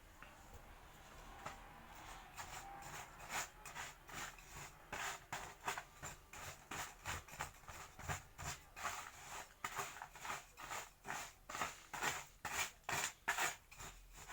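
Repeated short scraping strokes, about three a second, growing stronger after the first couple of seconds: fallen earthen-wall clay soil being worked with water in a container to soften it for reuse as wall plaster.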